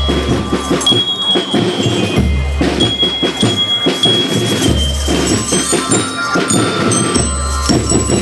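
School rhythmic marching band playing: bell lyres ring a melody over dense snare drumming, with a deep bass-drum beat about every two and a half seconds.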